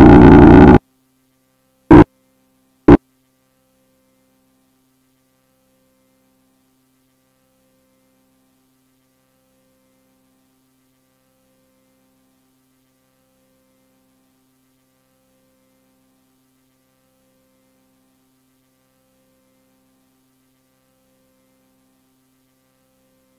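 A loud, harsh, distorted blast of noise, a jump-scare effect, at the very start, then two short blasts about a second apart. After that only a faint low hum remains, with a higher tone pulsing about every second and a half.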